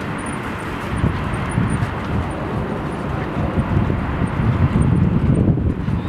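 Outdoor roadside ambience with an irregular low rumble of wind gusting on the microphone, strongest a little before the end.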